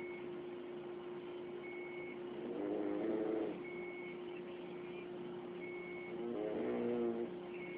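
A person snoring loudly, two snores about four seconds apart, each a rasping breath under a second long. Under them run a steady hum and a short electronic beep about every two seconds.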